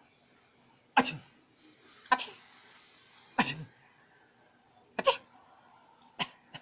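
A man making five short, sharp cough-like bursts with his mouth, about a second apart.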